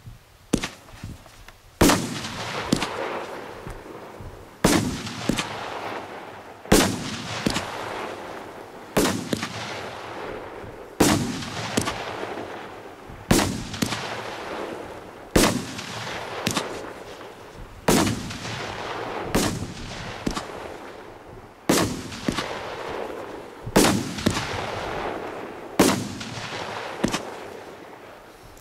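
Piromax PXB2413 19-shot, 30 mm fireworks battery firing: a sharp bang about every two seconds, often with a softer bang close behind, each fading out in a short tail.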